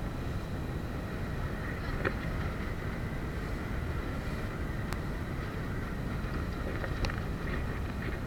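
Small motorboat under way at sea, heard as a steady low rumble of wind buffeting the microphone over the boat's running noise, with a few faint ticks.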